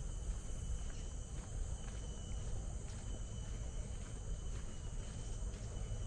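Steady high-pitched drone of forest insects, with a low rumble underneath and faint footsteps on a path at irregular intervals of about a second.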